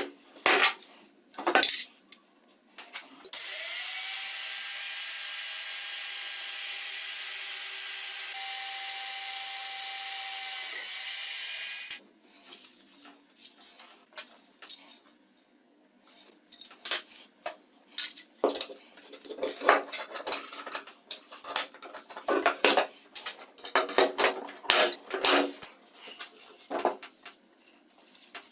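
A power tool starts a few seconds in, its pitch rising as it spins up. It runs steadily with a hiss for about eight seconds, then stops abruptly. Afterwards come irregular knocks and clinks of metal parts and tools being handled.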